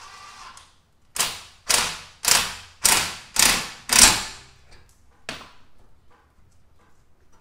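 Six sharp metal-on-metal strikes, about two a second, each ringing briefly, then one lighter knock about a second later. These are hammer blows on the steering knuckle to free the outer tie rod end.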